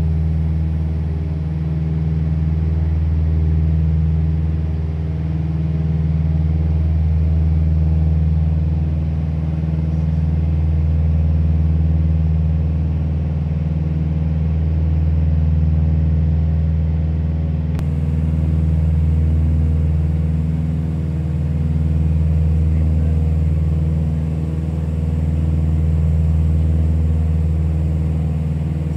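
Small propeller airplane's engine and propeller droning steadily in cruise, heard inside the cockpit. The drone swells and fades slowly every few seconds.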